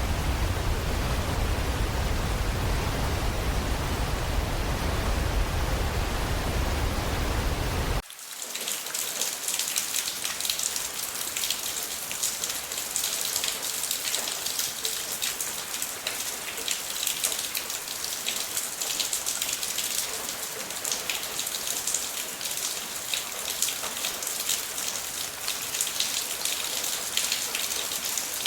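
A steady, deep rushing noise that cuts off suddenly about eight seconds in. Rain takes over: a brighter hiss full of fine, fast patter of drops.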